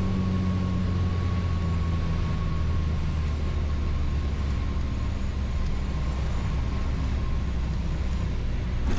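Cabin sound of a Piper Turbo Arrow IV's turbocharged six-cylinder engine and propeller at landing power, a steady low drone through touchdown and rollout. A faint steady high tone runs under it and fades near the end.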